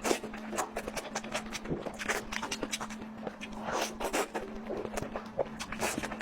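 Close-miked eating sounds: chewing and mouth noises with many short, irregular clicks and crackles, over a steady low hum.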